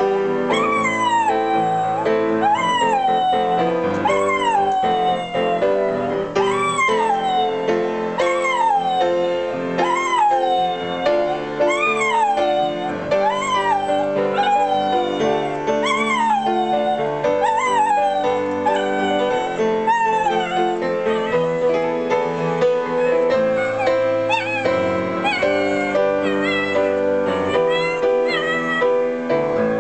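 A Border Terrier howling along to a piano playing a slow song: short rising-then-falling howls come about once a second over the piano chords. After about twenty seconds they give way to sparser, shorter cries while the piano plays on.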